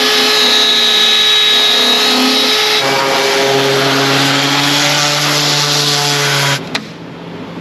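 Electric power sanding on fiberglass: a rotary sander with a disc pad runs steadily, then a random orbital sander with a dust-extraction hose takes over, each a motor whine over grinding noise. Near the end the sanding stops suddenly with a click, leaving a quieter steady hum.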